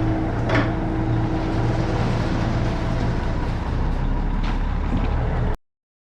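Ready-mix concrete truck's diesel engine running steadily, with a couple of short knocks. The sound cuts off abruptly near the end.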